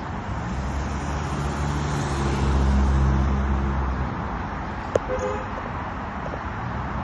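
A motor vehicle passing on a street over steady traffic noise: its low engine rumble swells to a peak about three seconds in and fades away. A sharp click with a brief short tone comes about five seconds in.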